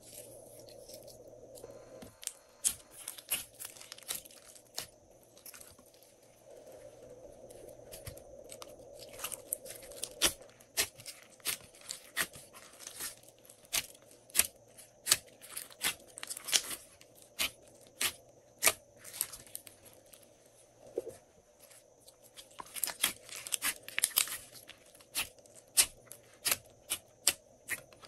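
Glossy slime squeezed and kneaded by hand in a glass dish, giving sticky popping and crackling: irregular sharp pops, several a second.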